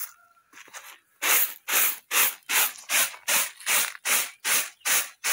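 Shelled maize grains tossed in a woven winnowing basket, each toss a short swish of rattling grain, repeating about two and a half times a second from about a second in.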